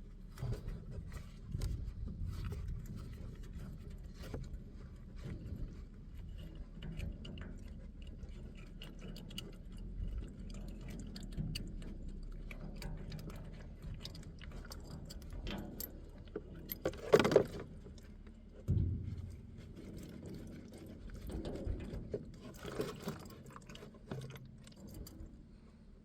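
Hand work on a combine's fuel filter: small metallic clicks, clinks and rattles of tools and parts being handled, with a louder clatter about 17 seconds in and another knock soon after.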